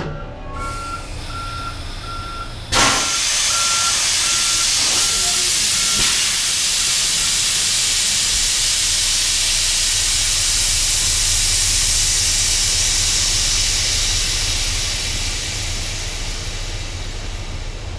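A reversing alarm beeps steadily, then about three seconds in a loud, steady hiss of escaping air starts suddenly, typical of a truck's air brake system venting, and slowly fades near the end.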